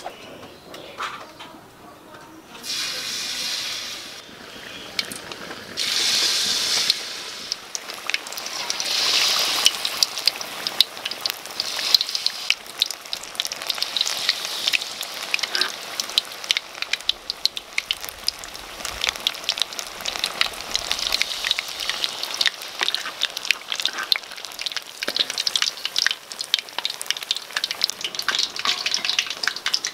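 Batter-coated pineapple pieces deep-frying in hot oil in a wok, a dense sizzle full of crackles and pops. It is softer for the first couple of seconds, with louder surges of sizzling at about three and six seconds in, then a steady busy crackle.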